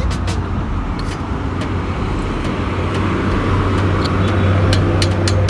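Motor vehicle engine running in traffic, a steady low hum that grows louder through the second half, with scattered sharp clicks.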